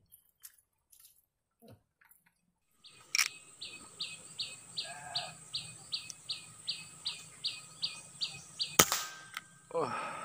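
A bird chirping in short high calls, about three a second, then near the end a single sharp air rifle shot, the loudest sound, which brings down a squirrel.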